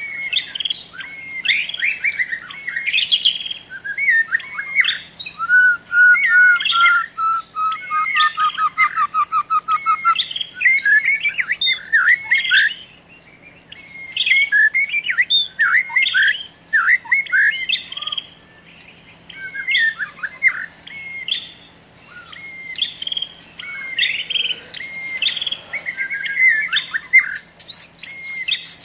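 Several songbirds singing and chirping at once, with overlapping whistled phrases throughout and a run of about a dozen quick repeated notes, falling slightly in pitch, between about six and ten seconds in.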